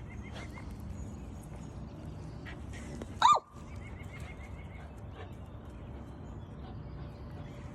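A puppy gives one short, high-pitched yip about three seconds in.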